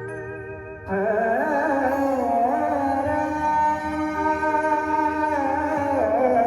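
Maharashtrian brass band music: a held chord fades, then about a second in a louder lead melody comes in, sliding and wavering in pitch over sustained accompaniment.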